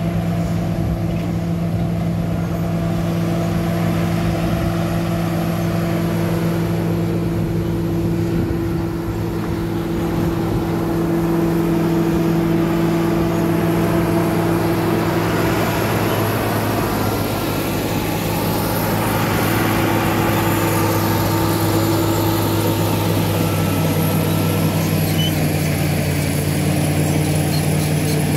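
Diesel engine of a Caterpillar D7 bulldozer running steadily, its pitch dipping slightly near the end.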